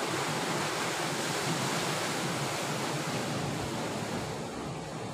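Sea surf washing against a rocky shore, a steady rush of waves that eases slightly near the end.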